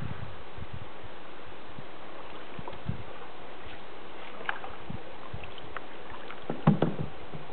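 Open canoe being paddled on calm water: the paddle dipping and water splashing against a steady background of water and wind noise. A few sharp knocks and splashes come near the end.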